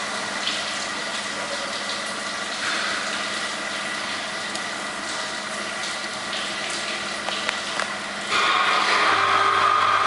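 Automatic carpet washing machine running: motors, pumps and water make a steady wet, rushing machine noise with a constant hum. About eight seconds in it gets louder and a new lower hum comes in.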